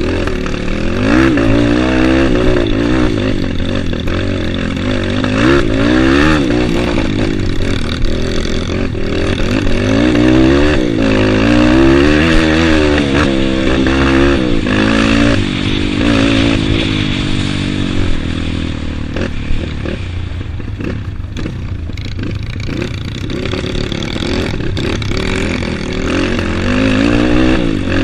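Trail motorcycle engine revving up and down again and again as it rides, with clattering knocks from the bike over rough ground. The revving eases off for several seconds past the middle, then picks up again near the end.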